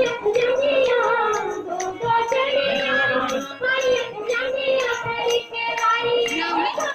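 High voices singing a folk song over a steady percussion beat, the accompaniment to a group folk dance.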